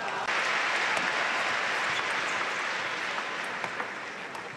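Large arena crowd applauding at the end of a table tennis rally. The clapping breaks out sharply just after the start, peaks in the first two seconds, then slowly dies away.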